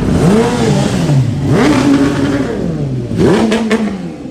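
High-capacity motorcycle engine being revved in blips, its pitch swinging up and back down three times.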